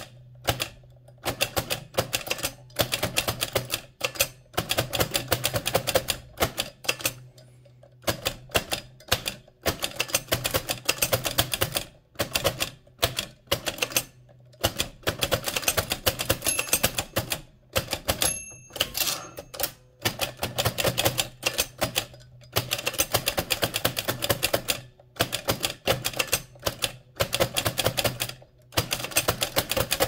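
1925 AEG Mignon 4 index typewriter being typed fast: a rapid stream of mechanical clacks as the impression key is pulled and released for each character and the type cylinder strikes, with short pauses every few seconds. A brief ringing tone sounds about two-thirds of the way through.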